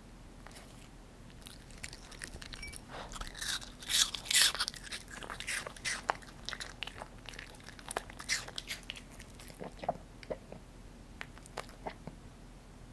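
A poodle biting and crunching a piece of apple, then chewing it. The crunching is loudest about four seconds in and thins to a few scattered chewing clicks toward the end.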